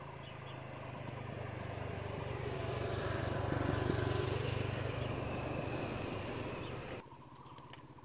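A motor vehicle passing by: its engine sound swells to a peak about halfway through, then fades and cuts off abruptly near the end.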